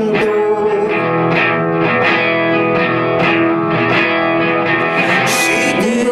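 Nylon-string acoustic guitar playing an instrumental passage between sung lines, picked notes ringing over one another.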